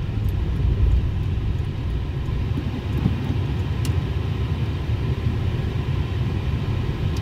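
Steady low rumble of a car rolling slowly, engine and tyre noise heard inside the cabin, with one short click about four seconds in.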